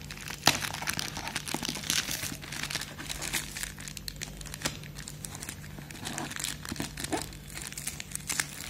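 Crinkling and rustling of a thin white packing pouch being crumpled by hand on a cardboard shipping box, with many short sharp crackles, the loudest about half a second in.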